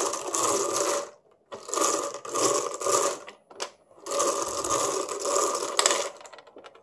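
A plastic bingo lotto cage being cranked by hand, the small plastic balls rattling and tumbling inside it, in three spells of turning with short pauses between. It is turned slowly so that one numbered ball drops out.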